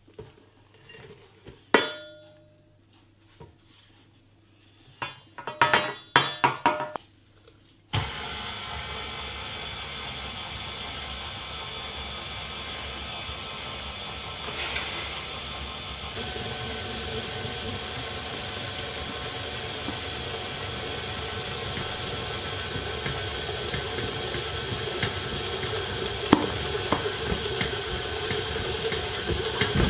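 A few knocks and clinks against a steel mixing bowl as ingredients go in, then a stand mixer's motor starts suddenly about eight seconds in and runs steadily, its flat beater mixing a stiff almond, sugar and egg-white paste for macarons. About halfway through it gets a little louder.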